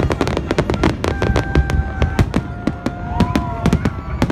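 Fireworks display: aerial shells going off in quick succession, several sharp bangs a second, with a few held tones through the middle.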